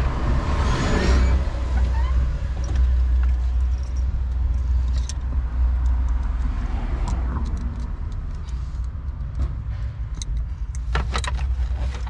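Steady low rumble of a vehicle engine running nearby, with a few sharp plastic clicks and rattles near the end as the steering column shroud is handled and fitted.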